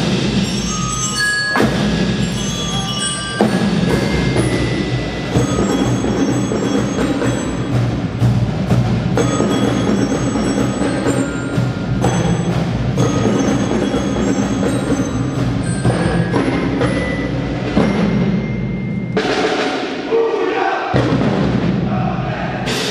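Navy recruit band's percussion section playing a march: bass drums and cymbals beating a steady rhythm under a ringing bell-like melody. Near the end the drumming thins out and the crowd begins to applaud.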